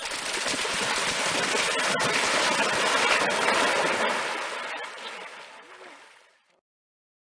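Rushing, splashing water with scattered sharp drips and slaps. It builds over the first second, holds, then fades out about six seconds in.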